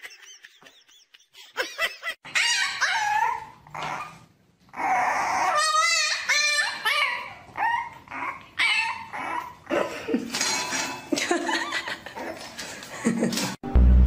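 A dog whining and yipping in a long run of high, wavering cries, which stop abruptly near the end.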